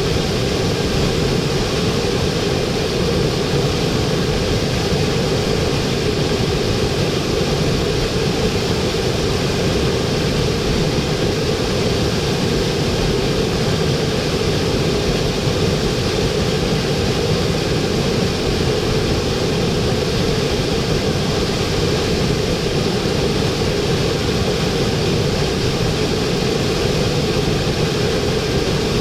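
Waterfall heard close to the falling water: a loud, steady, unbroken rush of water that stays the same throughout.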